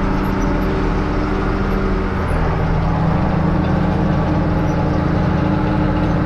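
Case 2290 tractor's six-cylinder diesel engine running steadily under load while pulling a chisel plow through hard, dry ground. Its pitch drops slightly about two seconds in.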